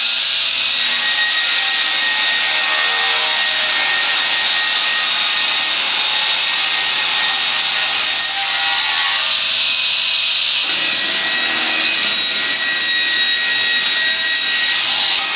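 Motorised saw head of a gantry log mill cutting lengthwise through a large log: a steady, high-pitched sawing whine with a brief dip about eight seconds in.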